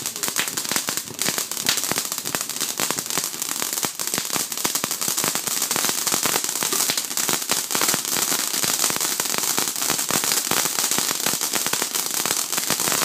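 Fountain firework spraying sparks with a dense, continuous crackle over a steady hiss.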